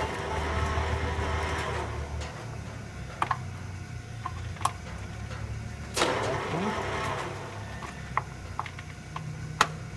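16" x 60" Carroll-Jamieson engine lathe running with a steady low hum while its feed levers are shifted. There is a clatter at the start and again about six seconds in, with single sharp clicks scattered between.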